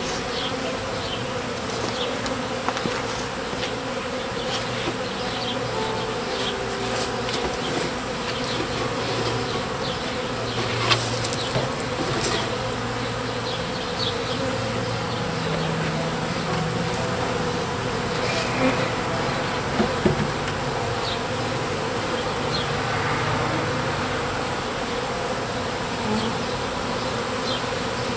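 A mass of honeybees buzzing steadily around an open Langstroth hive just after a package of bees has been installed, with a few light knocks from handling the hive parts.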